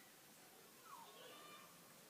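A pitbull puppy gives a faint, short whimper about a second in, a squeal that falls in pitch; otherwise near silence.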